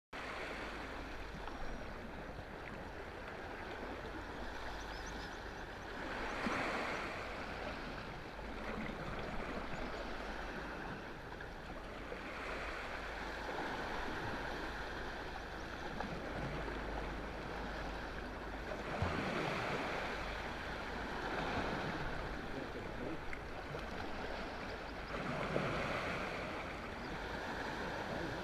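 Sea waves washing onto a rocky shore, a soft rushing swell every few seconds over a steady wash.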